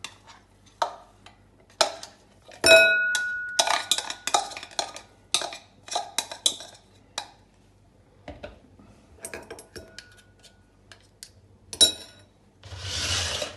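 A metal spoon scraping minced veal and pancetta out of a hand-blender chopper bowl into a ceramic bowl: a string of clinks and knocks, with one loud ringing clink about three seconds in. A short rushing noise near the end.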